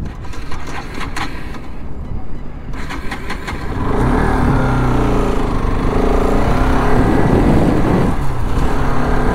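Bajaj Pulsar RS 200 motorcycle's single-cylinder engine running while the bike is ridden on the road. It is quieter for the first few seconds, then louder from about four seconds in, its note rising and falling.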